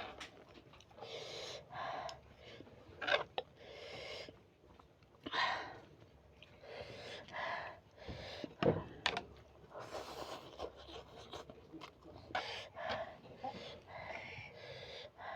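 A person eating very spicy noodles close to the microphone, with short, sharp panting and hissing breaths about every second, reacting to the chilli heat, and a few mouth clicks from eating in between.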